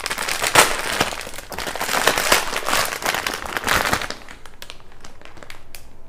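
Plastic packaging crinkling and rustling as it is handled, loud and crackly for about four seconds, then dropping to a few quieter clicks and rustles.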